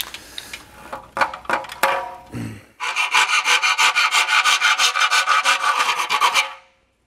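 Aerosol spray-paint can being shaken hard, its mixing ball rattling in fast even strokes, about eight a second, for several seconds before stopping abruptly. A few handling knocks come before it.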